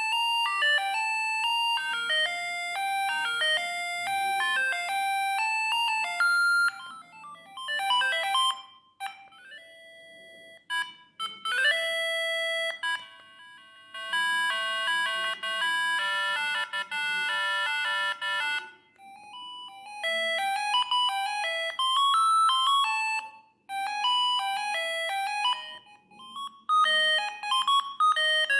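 Siemens S45i mobile phone playing its built-in ringtones: short electronic melodies of stepped beeping notes, one after another with brief pauses between them.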